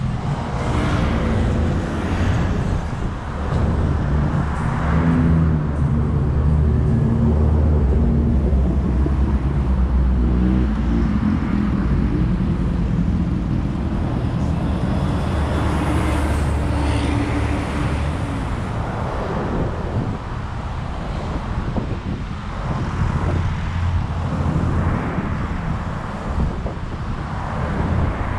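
Road traffic: motor vehicle engines running with a deep, steady rumble and a wavering engine note, loudest in roughly the first eighteen seconds and then easing off.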